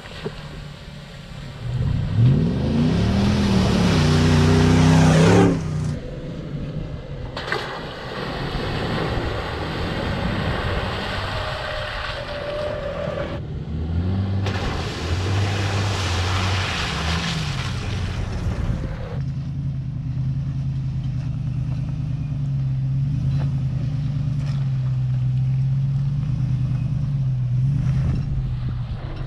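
Toyota 4Runner engine revving, its pitch rising for a few seconds, then two long stretches of loud rushing noise, after which the engine runs steadily at low revs.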